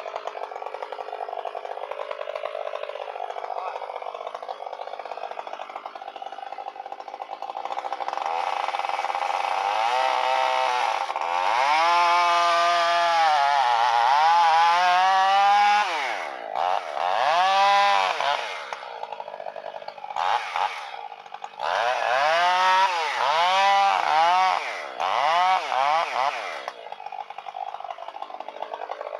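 Chainsaw running at a steady lower speed, then throttled up about eight seconds in and cutting into a tree trunk. Its pitch sags and recovers again and again as the chain loads up in the cut, with a few short breaks where the throttle eases off.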